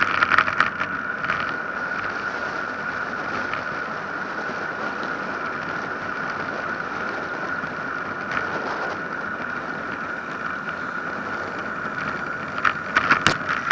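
Steady rushing of wind and tyre noise from a road bicycle coasting downhill on asphalt, with a constant high whine in the noise. Sharp clicks and rattles over rough road come in a cluster right at the start and again near the end.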